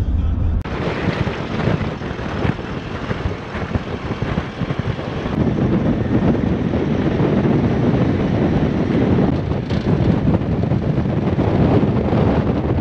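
Wind buffeting the microphone of a camera mounted outside a moving pickup truck, over the truck's low road rumble. About half a second in it cuts in suddenly, replacing a steady engine drone heard inside the car's cabin.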